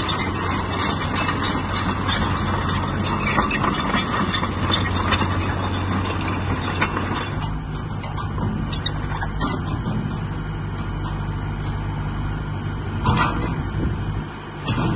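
Hyundai Robex 140LC-9A crawler excavator's diesel engine running steadily, with clanks and rattles through roughly the first half while the machine turns, then running more evenly, with a single louder knock near the end.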